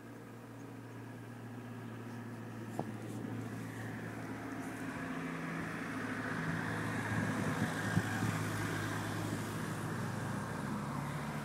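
A motor vehicle's engine droning as it drives past, slowly growing louder, loudest past the middle, then beginning to fade near the end.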